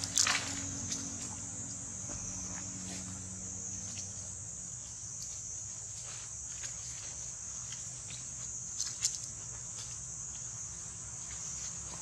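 Steady high-pitched drone of an insect chorus, with a few short crackles of dry leaf litter: the loudest just after the start and two more about nine seconds in.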